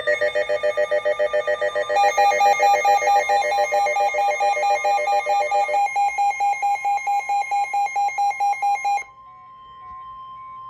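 Weather alert radio sounding its alarm for a tornado warning: rapid multi-tone beeping, about eight beeps a second, with a second beeping pattern joining about two seconds in. The beeping stops about nine seconds in, leaving only the steady NOAA Weather Radio warning alarm tone.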